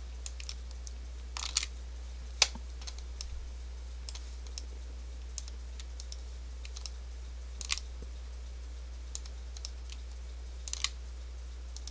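Scattered, irregular clicks of a computer keyboard and mouse being worked, a few at a time with short gaps, over a steady low electrical hum.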